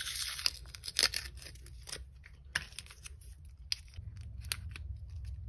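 Foil seal being peeled off a small clear plastic toy capsule, with crinkling and a scatter of sharp clicks from the plastic as fingers pry it open.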